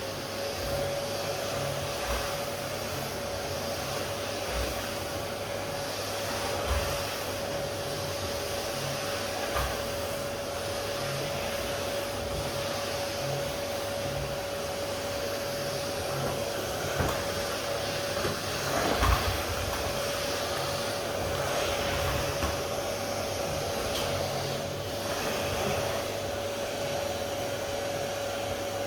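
A high-speed electric motor spins up, runs at a steady whine with a hiss of air, and winds down at the end, with a few faint knocks along the way.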